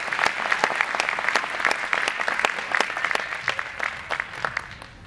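Audience applauding, dense clapping that thins out and dies away toward the end.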